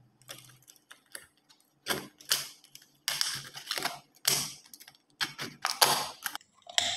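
Utility knife cutting into the thin wall of an aluminum soda can near its bottom: irregular sharp crackles, clicks and scrapes as the blade pierces and slices the metal and the can is turned, faint at first and louder from about two seconds in.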